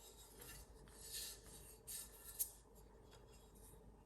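Faint rubbing and scraping with a short click about two and a half seconds in: the metal speaker stand and its plates being handled and turned over.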